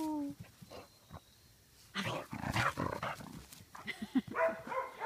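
A dog making play noises with a rope toy in its mouth: a falling whine fading out at the start, then a run of rough, breathy noises and short pitched sounds from about two seconds in.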